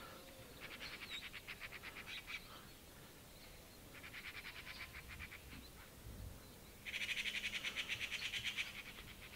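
A small animal calling in three bouts of rapid, high trills of about ten pulses a second; the last bout, about seven seconds in, is the loudest.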